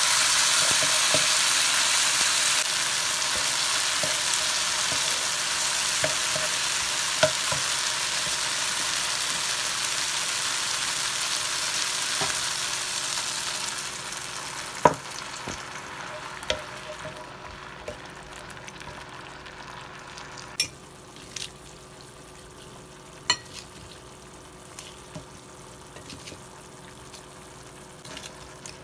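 Chopped tomatoes, onions and garlic sizzling in hot oil in a frying pan as a spatula stirs them. About halfway through the sizzle dies down sharply, leaving a softer bubbling with a few sharp clicks.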